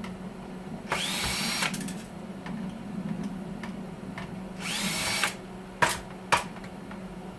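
A handheld power drill/driver run in two short bursts, its motor whine rising quickly to speed and holding each time, as fasteners are backed out of the heater's casing. Two sharp clicks follow near the end.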